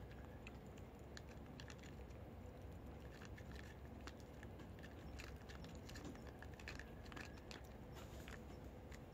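Cats crunching dry kibble: faint, irregular crunches that come thicker in the second half.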